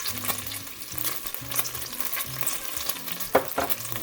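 Thinly sliced garlic sizzling and crackling in hot olive oil in a cast iron pot, with one sharp knock a little over three seconds in.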